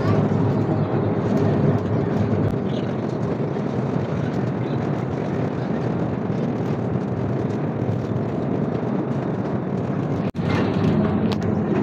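Steady rumble and rattle of a small tourist mine train running through a rock tunnel, with one brief dropout about ten seconds in.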